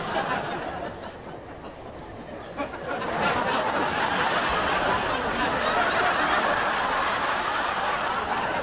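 Studio audience laughing, swelling into a loud, sustained wave of laughter about three seconds in.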